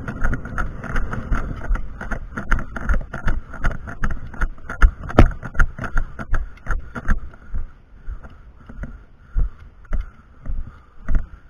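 Footsteps and rattling gear of an airsoft player on the move, with dense, irregular knocks for the first seven seconds, then single steps about every half second.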